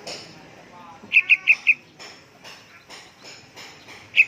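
Young yellow-vented bulbul calling: a quick run of four sharp, high chirps about a second in, with a short warbling phrase just before it, and another run of chirps starting near the end.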